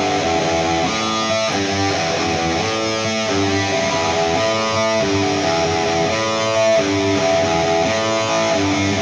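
Electric guitar playing a riff of held chords and notes that change every half second or so, at a steady level.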